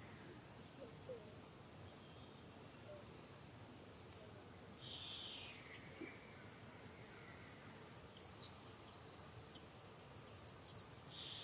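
Faint forest insect drone, a steady high-pitched buzz, with a louder falling call about five seconds in and again near the end.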